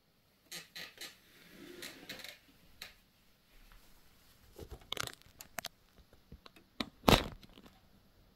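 Handling noise from a phone and a plastic tub: scattered clicks, crackles and rustling in two clusters, then one loud knock about seven seconds in.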